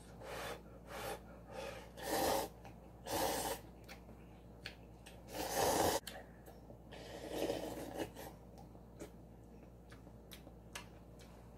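A person slurping instant udon noodles from a cup with chopsticks. Several short slurps are followed about six seconds in by a longer, louder slurp as the cup is tipped to the mouth.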